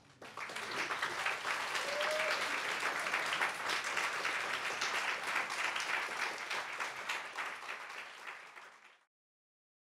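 Audience applauding, a dense patter of many hands clapping that starts just after the reading ends, dies down and cuts off about a second before the end.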